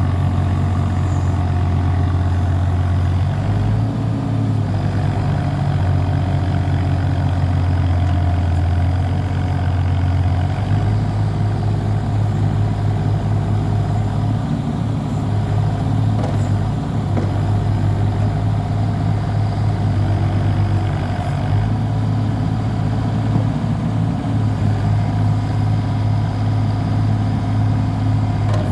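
Mitsubishi S3L three-cylinder diesel engine of a mini excavator running steadily, its low note stepping slightly up or down in pitch a few times.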